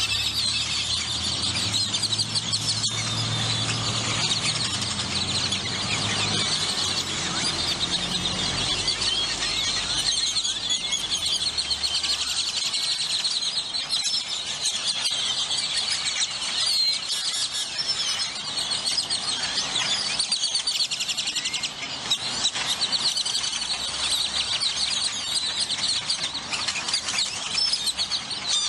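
A large flock of great-tailed grackles calling all at once, a dense chorus of squeaky whistles and chatter. A low rumble sits underneath for about the first twelve seconds, then fades.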